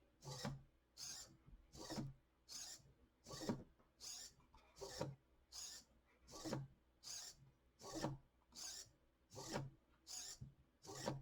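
Hobby servos of a 3D-printed robotic cat whirring in short, rhythmic bursts, roughly one or two a second, as its legs drive it through repeated push-ups.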